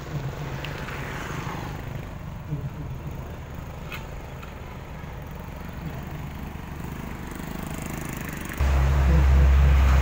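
Heavy lowboy truck's engine running steadily, then suddenly much louder and deeper about eight and a half seconds in.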